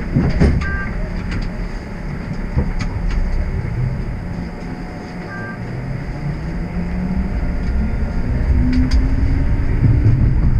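TTC streetcar pulling away and accelerating: a motor whine rising slowly in pitch over a steady low rumble, getting louder near the end. A short two-note electronic chime sounds twice, about a second in and again about five seconds in.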